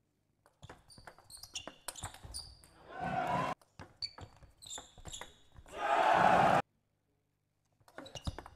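Table tennis rally: the ball clicking sharply off the paddles and the table, with short bright pings. Twice a short burst of crowd applause swells up and cuts off abruptly, and the rally clicks return near the end after a silent gap.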